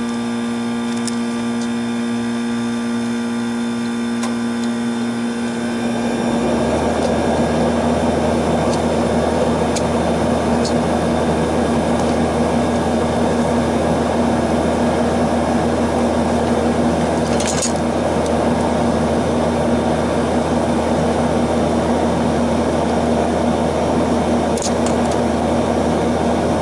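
Steady hum of a running outdoor air-conditioning unit; about six seconds in, a louder, even fan-like rush comes on and keeps running. A few faint clicks of tools on the contactor wiring.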